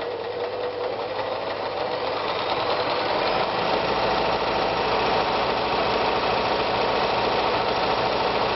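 Privileg Super Nutzstich 314 sewing machine running steadily while sewing a zigzag stitch. It picks up speed and gets louder about three and a half seconds in.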